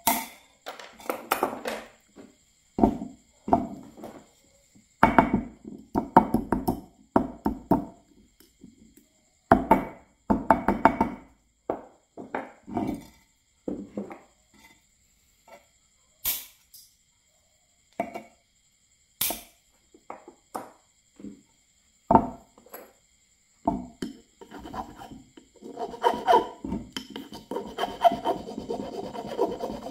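Short bursts of clicking and scraping as pliers cut and strip insulated copper wire on a concrete slab. Near the end a steel hand file starts rasping steadily, stroke after stroke, across the copper wire held against a wooden block.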